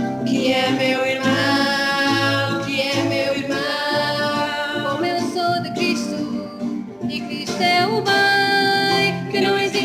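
Voices singing a Portuguese hymn with instrumental accompaniment, holding long sung notes.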